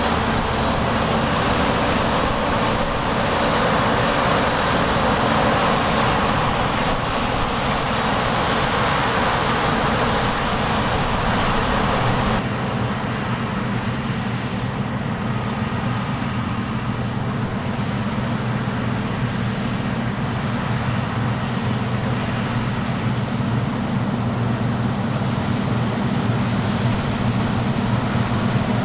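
Heavy farm machinery's diesel engine running steadily under load, with a faint high whine slowly rising in pitch. The higher hiss drops away abruptly about twelve seconds in, leaving the low engine drone.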